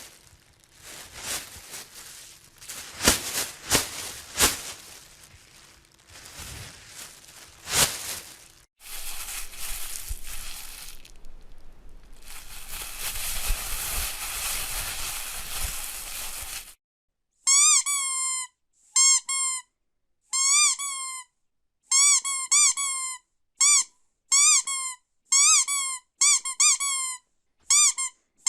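Rubber squeaky dog toy squeezed over and over, a quick run of short, high squeaks with a wobble in pitch and silence between them. It starts just past the middle, after a long stretch of rustling noise with sharp clicks and pops.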